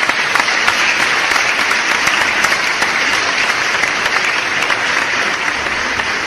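Crowd applause: dense, steady clapping.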